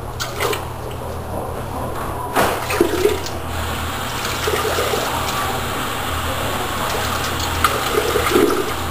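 Water running steadily with a rushing hiss, growing louder about two seconds in.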